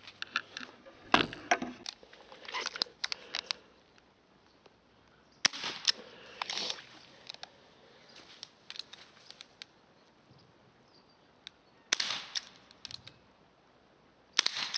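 CO2 airgun shots: four sharp cracks several seconds apart, each followed by a short run of smaller clicks and knocks.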